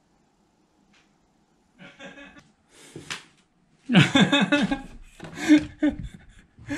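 A person's voice in short low chuckles, starting about two seconds in and loudest about four seconds in, mixed with a few brief handling noises.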